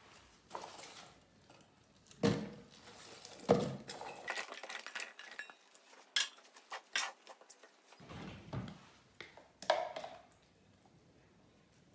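Chopped onion pieces dropped by hand into a plastic blender jug, an irregular run of knocks and clatters against the plastic. The loudest knocks come about two and three and a half seconds in.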